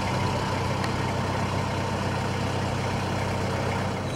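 Diesel engine of a steam-outline miniature railway locomotive idling with a steady low hum.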